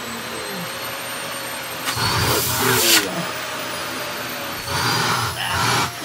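Vacuum cleaner running with a steady high motor whine and a constant rush of air, surging louder twice, about two seconds in and again near the end, as the suction airflow changes.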